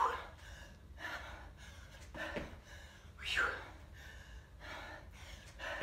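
A woman breathing hard from exertion during jump squats: a handful of sharp, gasping exhales a second or so apart.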